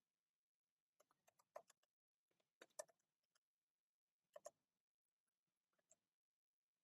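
Very faint computer keyboard typing: four short runs of keystrokes with near silence between them.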